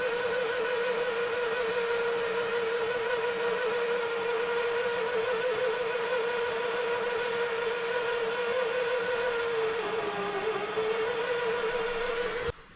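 A small electric motor running steadily with a slightly wavering whine, dipping in pitch briefly about ten seconds in, then cutting off suddenly near the end.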